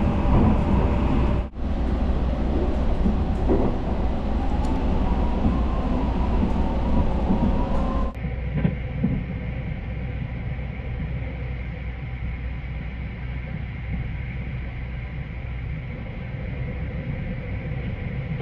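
Running noise of the Sunrise Express sleeper train heard from inside the cabin: a steady low rumble. A faint whine rises slightly in pitch midway, and the sound changes abruptly twice, about a second and a half in and about eight seconds in.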